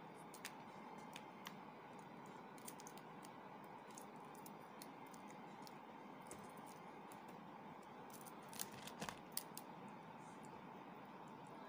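Faint small clicks and crackles of a boiled duck egg's (penoy's) shell being peeled by hand, over a steady low hiss. A quick cluster of louder clicks comes about nine seconds in.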